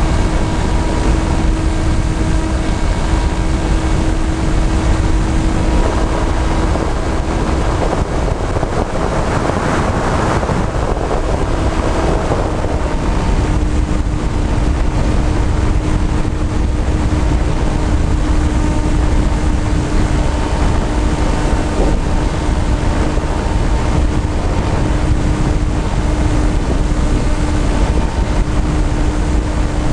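Electric motors and propellers of a small camera drone, heard from its onboard camera: a steady whine over heavy wind rumble on the microphone. Between about eight and thirteen seconds in the whine breaks up and comes back at a slightly different pitch.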